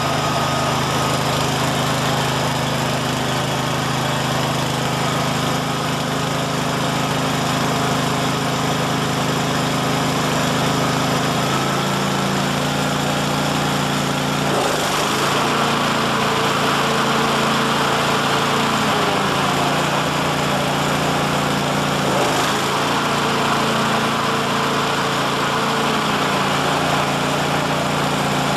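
Ransomes Bobcat 36-inch walk-behind mower running on its replacement 11 hp Honda engine, a steady engine note whose pitch shifts a little a few times about halfway through.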